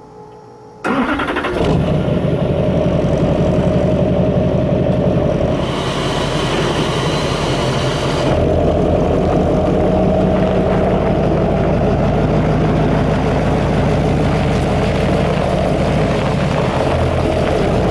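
Duramax V8 turbodiesel pickup engine that comes in suddenly about a second in and keeps running steadily and loudly. A faint rising whistle joins it for a couple of seconds midway.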